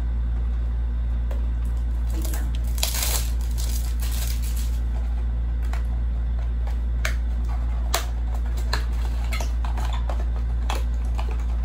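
Paperboard skincare box being opened and handled: scattered light clicks and rustles of the cardboard flaps, with a longer stretch of rustling about three seconds in, over a steady low hum.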